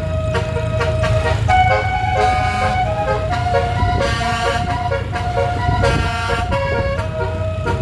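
Telolet musical air horns on a tour bus playing a tune, the notes held and stepping up and down one after another. A steady low engine rumble runs underneath.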